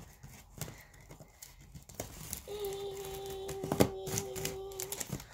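Scissors slitting packing tape along the seam of a cardboard box, with crinkling, ripping tape noise and scattered clicks of the blades. About halfway in a steady, even tone starts and holds for about two and a half seconds.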